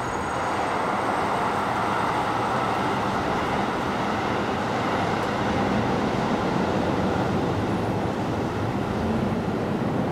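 Steady rushing noise of a passing vehicle, swelling up at the start and then holding level.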